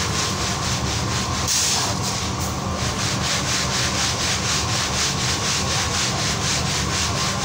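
Hot roasting sand hissing as it pours from a sieve back into the roasting pan about a second and a half in, over a steady rasping noise that pulses about three times a second.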